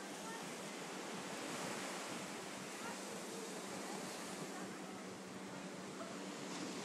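Pacific surf breaking and washing up a sandy beach, a steady rushing hiss, mixed with a little wind.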